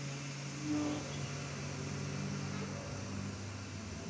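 Diesel locomotive engine idling: a steady low hum whose pitch drops slightly about three seconds in.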